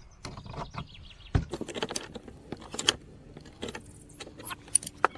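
Adjustable pliers clicking and scraping against a brass compression nut as it is tightened onto a pipe fitting, in many irregular small metal clicks, with one heavier knock about a second and a half in.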